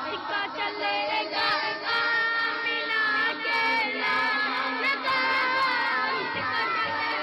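A man singing a naat, an Urdu devotional song, into a microphone with long held, wavering notes.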